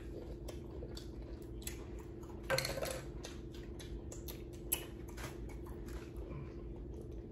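Scattered light clicks and taps of small objects handled at a table, with a brief soft rustle or murmur about two and a half seconds in, over a faint steady hum.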